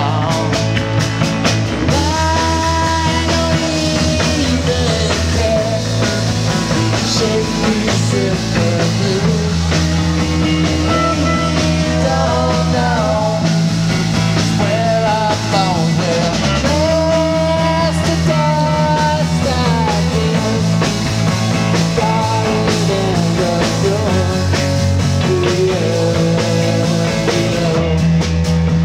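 Live rock band playing an instrumental passage on electric guitars, drums and keyboard. A lead melody bends up and down in pitch over a bass line that changes every few seconds.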